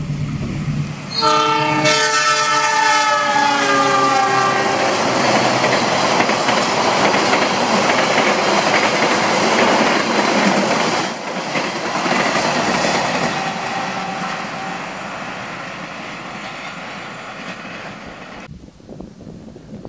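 Diesel locomotive's horn blowing for about three seconds as the train passes, its pitch dropping. Then the steady rush and rattle of the passenger carriages running through at speed, fading slowly and cutting off abruptly near the end.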